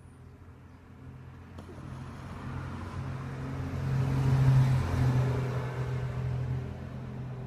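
Pug snoring in deep sleep: a low snore that swells to its loudest about four and a half seconds in, then eases off a little.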